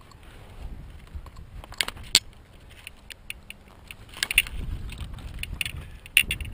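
Long binder rods being twisted and pulled along the top of a laid hedge by gloved hands: sharp cracks and clicks of rods and twigs bending and rubbing, with rustling of branches. A low rumble comes in about two-thirds of the way through.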